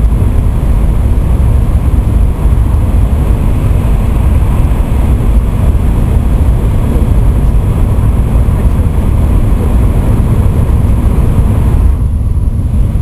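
Cabin noise of an N700-series Shinkansen running at speed through a tunnel: a loud, steady rumble with a hiss over it. About 12 seconds in, the hiss drops away as the train comes out of the tunnel, leaving the low rumble.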